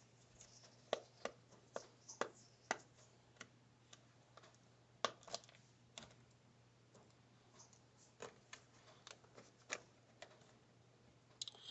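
Faint, irregular small clicks and ticks of a magnetic Phillips screwdriver working the tiny screws out of a laptop's cooling fan assembly, with a steady low hum underneath.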